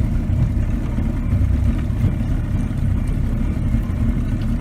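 Motorboat under way: a steady low engine-and-hull rumble, mixed with wind buffeting the microphone.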